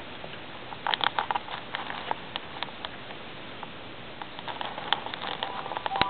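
Light, scattered clicks and taps as an Indian ringneck parakeet pecks and pushes at a plastic toy and mirror, in a quick cluster about a second in and again near the end.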